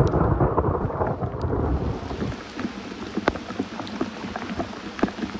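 A loud thunderclap rumbling for about two seconds and dying away, followed by steady rain with scattered drops ticking close by.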